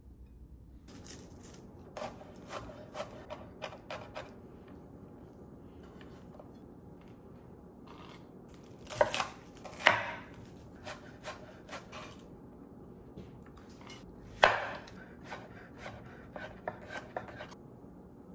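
Chef's knife chopping shallot and slicing squash on a wooden cutting board: irregular knocks of the blade striking the board, a few of them much louder, after a quiet first second.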